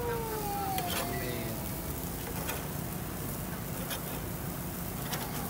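Beef burger patties sizzling on a charcoal grill's mesh grate. A metal spatula being worked under them to flip them gives a few light clicks and scrapes.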